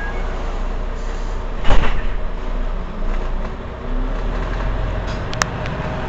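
Mercedes-Benz Citaro C2 Euro 6 city bus's diesel engine idling steadily, with a short loud hiss of air about two seconds in and a sharp click near the end.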